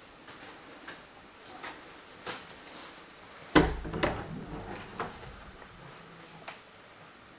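Wooden interior door with glass panes being handled: a sharp knock about three and a half seconds in, then smaller knocks about half a second and a second and a half later, with a few faint clicks before it.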